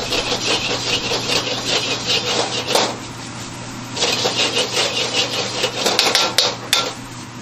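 Metal ladle scraping and clanking against a wok as fried rice is stirred and tossed, in quick repeated strokes over a steady low hum. The strokes ease off briefly about three seconds in, then pick up again, with a few sharp clanks near the end.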